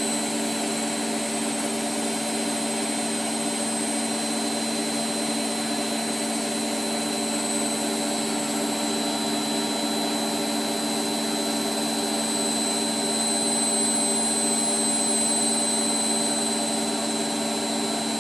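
Hotpoint WMF720P washing machine spinning at a steady speed, its motor giving an even whine with a low hum, while suds are still in the drum.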